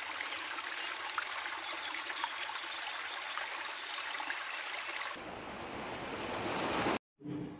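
Shallow stream running over stones, a steady rush of water. About five seconds in it gives way to small waves washing over rocks, swelling, then cuts off suddenly near the end.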